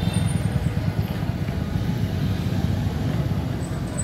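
Steady low rumble of motor vehicle engines, heavy and even, with no distinct pitch.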